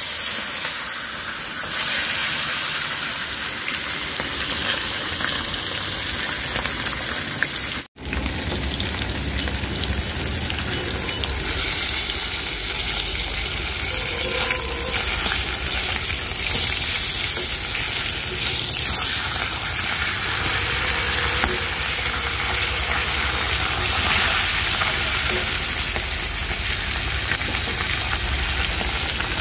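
Pomfret fish frying in hot oil in a kadai, sizzling steadily. The sound cuts out for an instant about eight seconds in.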